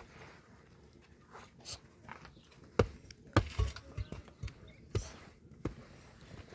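A run of irregular knocks and thumps, about seven in a few seconds, the loudest starting a little under three seconds in.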